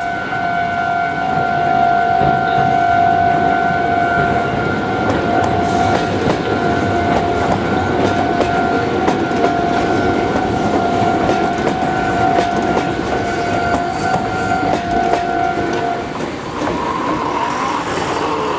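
An Iyo Railway electric train passes over a level crossing, its wheels clattering and rumbling on the rails. The crossing alarm rings as a steady tone over the train, then stops about two seconds before the end.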